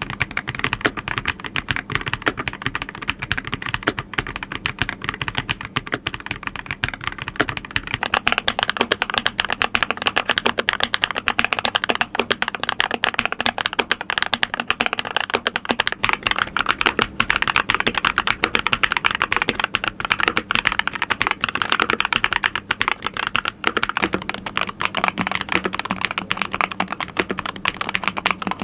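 Fast, continuous typing on Keychron mechanical keyboards, a dense run of key clicks and clacks. The sound's character changes about 8 seconds in and again near the end.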